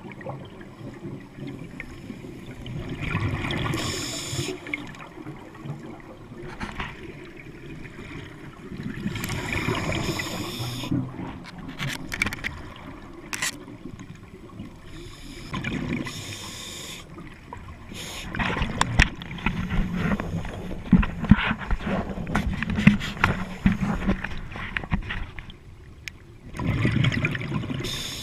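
Scuba diver breathing through a regulator underwater: bursts of exhaled bubbles every few seconds, with scattered sharp clicks in between.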